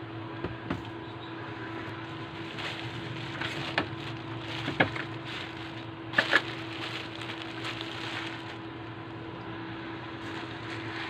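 Plastic bubble wrap rustling and crinkling as it is spread out and handled, with a few sharp clicks and knocks as a circuit board is moved onto it, the loudest a double click about six seconds in. A steady background hum runs underneath.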